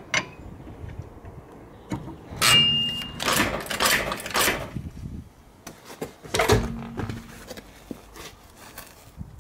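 Metal clanks and scrapes of wheel work: a lug wrench on the wheel bolts and a hydraulic floor jack raising the car, in several separate bursts, with a brief high squeak about two and a half seconds in.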